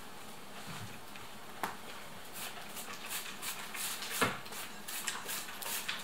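Close-up eating sounds: a run of short crackly chewing and crunching of flaky baked samsa pastry starting about two seconds in, with a single sharper knock near the middle.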